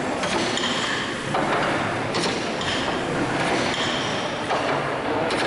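Hathorn Davey horizontal steam pumping engine running, with a steady mechanical clatter from its rods and valve gear that swells in a regular cycle about every second and a quarter.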